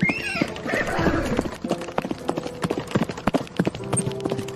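Horses' hoofbeats at a gallop: a fast, continuous run of clip-clop strikes. A high horse whinny tails off right at the start.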